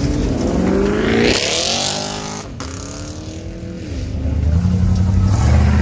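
Chevrolet Camaro accelerating hard away, engine revs climbing, dropping sharply at a gear change about two and a half seconds in, then climbing again and fading. In the last second or so a lower, steady engine rumble builds as a third-generation Camaro IROC-Z V8 pulls up close.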